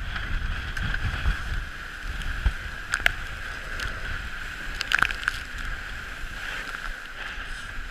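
Dragonfly trimaran sailing fast in a stiff breeze: a steady rush of water along the hulls and wind buffeting the microphone, with a few sharp slaps about three and five seconds in as spray and chop hit the boat.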